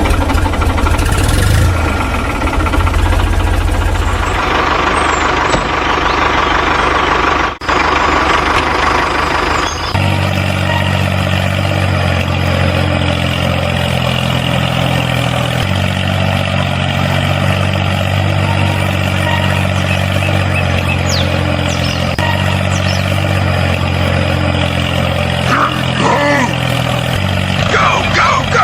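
A heavy vehicle engine runs steadily. About ten seconds in, it settles into an even, lower idle.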